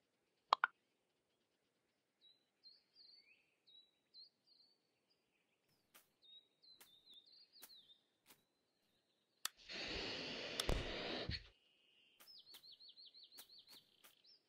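Bird chirping in short rising notes, then a fast trill of about eight notes a second near the end. A louder rush of noise lasts about two seconds in the middle, and there are scattered faint clicks.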